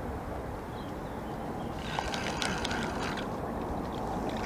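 A fixed-spool fishing reel being wound in two short spells, about two seconds in and again near the end, as a fish is played in on the float rod, over a steady low rumble.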